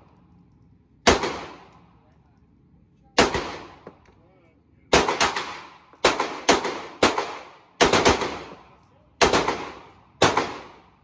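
About a dozen single shots from a 9mm Canik pistol, fired one at a time at an uneven pace, some close together and some with a second or two between them. Each crack rings out with a short echo off the walls of the indoor range.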